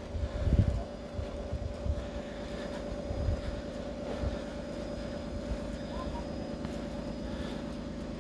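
A steady engine drone, with a few low rumbles early on.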